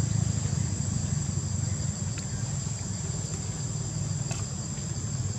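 Steady high-pitched insect chorus over a low steady rumble, with a couple of faint clicks.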